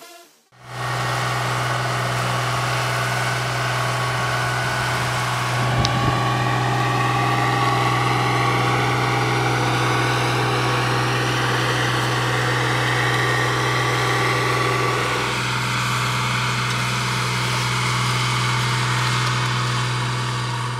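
Diesel engine of a Matrot self-propelled crop sprayer running steadily as the machine drives across the field, a strong low drone with fainter higher tones above it. There is a brief knock just under six seconds in.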